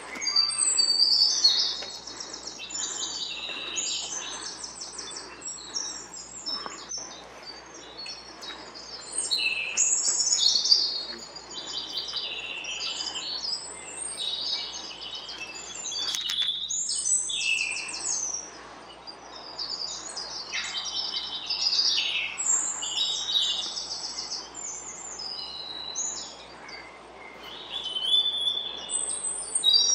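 Songbirds singing: high, fast twittering and trilled phrases, one after another and often overlapping, with a short lull about sixteen seconds in.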